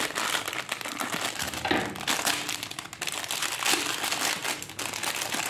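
A foil-lined snack packet crinkling as it is cut open with scissors and then pulled apart by hand: a continuous, irregular dry crackle of thin metallised plastic.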